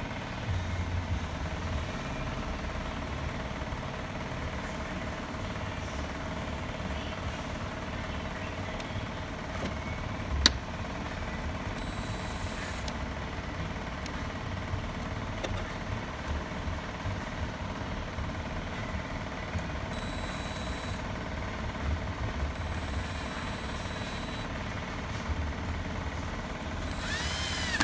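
Cordless drill driving the short screws of a carpet extractor's pump clamp. Its high motor whine comes in three short runs, over a steady low rumble, with one sharp click about ten seconds in.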